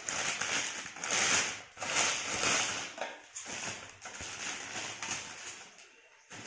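Clear plastic bag crinkling and rustling as a ceiling-fan motor is pulled out of it, in uneven swells that die down near the end.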